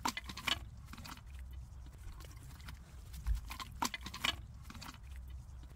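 Slow-cooked tanjia meat sliding out of an upturned clay tanjia pot onto a ceramic plate: wet squelches and a few short knocks and clicks, with a low thump about three seconds in.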